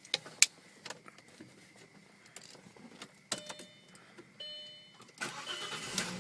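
Clicks and key jingle from the ignition of a B5 Audi S4, with short electronic chime tones twice in the middle. Near the end a steady rushing noise starts and carries on.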